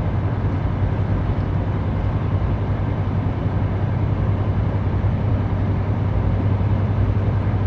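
Semi truck's diesel engine droning steadily, heard from inside the cab while driving slowly, mixed with a steady noise of road and air.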